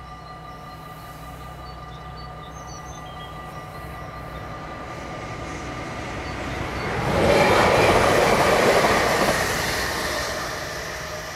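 An SNG (Sprinter New Generation) electric multiple unit passes over a level crossing. Its rolling noise builds gradually, is loudest from about seven to nine and a half seconds in, then fades. A steady ringing from the crossing's warning signals runs underneath throughout.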